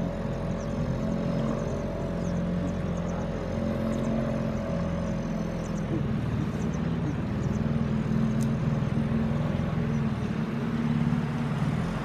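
A small motorboat's engine running steadily, driving the wooden boat along the river, its even drone shifting slightly in pitch about halfway through.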